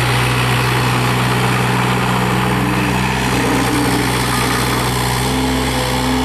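Yanmar VIO35-3 mini excavator's three-cylinder Yanmar diesel engine running steadily, its note shifting slightly a couple of times as the machine is worked.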